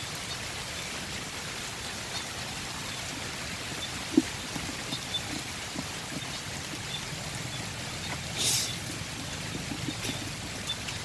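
Heavy rain falling steadily, with water running and trickling, and a short louder hiss about eight and a half seconds in.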